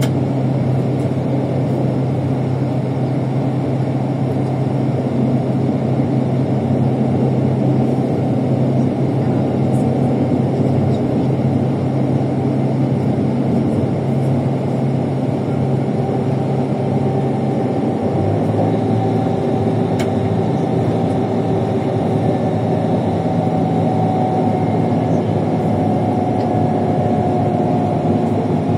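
Intercity coach's engine running steadily under road noise, heard from on board the bus. The engine note shifts about two-thirds of the way through.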